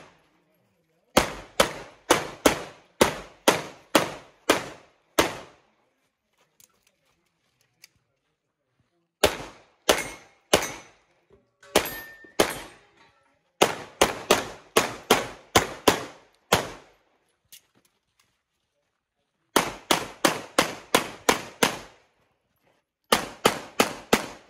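Semi-automatic pistol fired in strings of sharp shots, two to four a second, in a USPSA practical-shooting stage, with pauses of a few seconds between strings as the shooter moves between positions.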